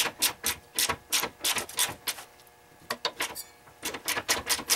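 Socket ratchet clicking in quick runs, about four to five clicks a second with a short pause a little past halfway, as the upper shock-absorber mounting nuts are loosened.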